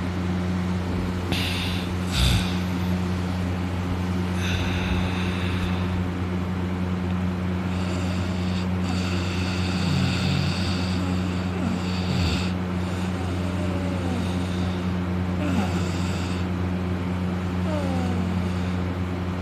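A man snoring heavily in deep sleep, on his back with his mouth open, a raspy breath coming every few seconds. Under it runs a steady low drone.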